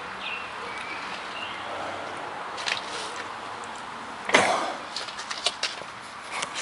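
Scattered light clicks and knocks over a steady background hiss, the loudest a single sharp knock a little past the middle, followed by a quick run of small clicks.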